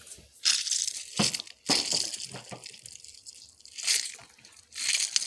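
Fidget toys being handled: silicone pop-its shifted about and a mesh squishy stress ball squeezed by hand, in about five short bursts of scratchy noise.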